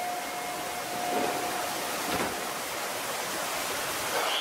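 Steady hiss of an Osaka Metro Midosuji Line subway train standing at an underground platform with its doors open, with a faint steady tone in the first half and a couple of faint knocks.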